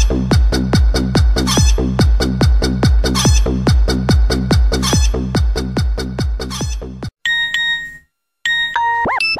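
Novelty dance-beat ringtone: a fast, even kick-drum beat with chicken clucking and crowing sounds over it, cutting off suddenly about seven seconds in. Short electronic beeps of another ringtone follow, then a brief silence and electronic tones that sweep up and down near the end.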